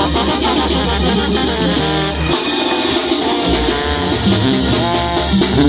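Sinaloan banda brass band playing a mambo live, with trombones and trumpets over percussion and a deep bass line. The bass drops out for about a second midway, then comes back in.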